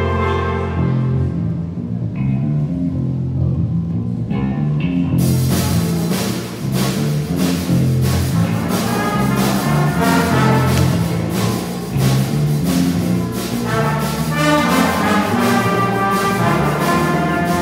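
Student jazz band playing live: horns hold chords over a repeating bass line. About five seconds in, the drum kit comes in with a steady beat.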